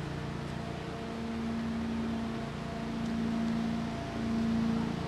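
A steady low mechanical hum, with a few faint ticks.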